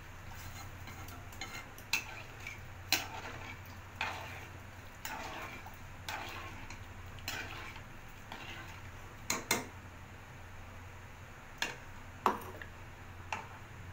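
Metal ladle stirring a watery gravy in a kadai, scraping the bottom with irregular clinks of metal on the pan, roughly one a second. A steady low hum runs underneath.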